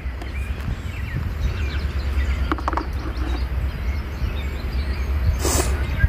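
Steady low rumble of wind on the microphone, with birds chirping faintly. There is a brief clatter about two and a half seconds in and another near the end, as a power cord's plug is pushed into the AC outlet of a Jackery 240 portable power station.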